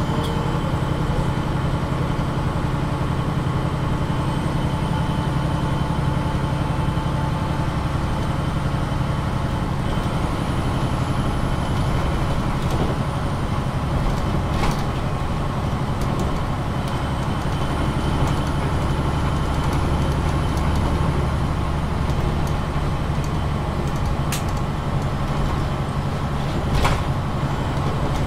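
Ride sound inside a MAN NG 313 articulated city bus: steady engine drone with a few short clicks or rattles, the low drone growing heavier a little past halfway.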